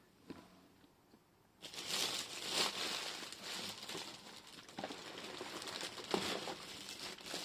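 Craft supplies being rummaged through by hand: crinkling of packaging with small clicks and knocks, starting about a second and a half in and going on steadily.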